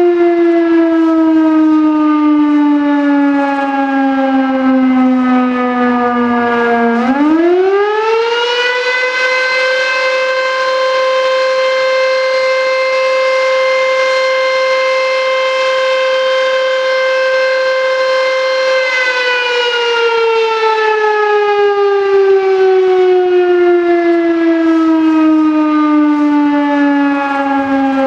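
Historic 1920s VS6 high-tone fire siren with an 11-port rotor, sounding the fire-alarm signal. Its wail falls in pitch as the rotor coasts down, then about seven seconds in it winds quickly back up to a higher, steady pitch, holds for about eleven seconds, and falls away again. The rotor is suspected to be turning the wrong way, which keeps the siren from reaching its full volume.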